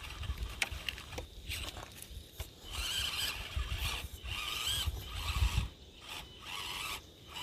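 Axial SCX24 micro RC crawler driving in short stop-start bursts, its small electric motor and gears whirring and its tyres scraping over the ground.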